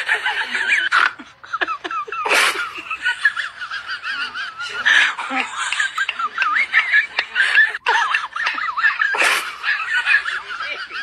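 A high, warbling laughter sound effect runs throughout, broken by short, sharp noise bursts about 2.5, 5 and 9 seconds in.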